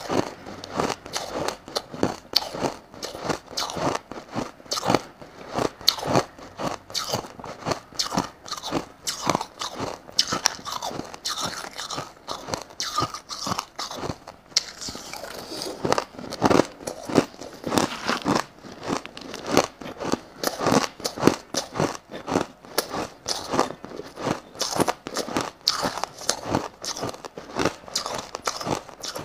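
Crushed ice being chewed, picked up close by a lapel microphone: a continuous run of crisp crunches, several a second.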